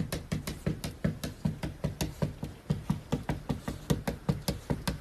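A cat's front paws knocking rapidly against a window pane as it bats at the glass, about four to five knocks a second.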